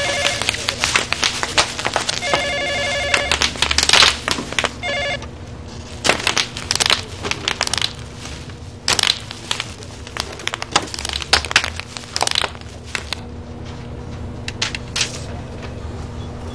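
A telephone bell rings in a few short bursts during the first five seconds. Over it, bubble wrap is crushed by hand in rapid, loud crackling pops and crinkling. The popping thins to scattered clicks after about thirteen seconds.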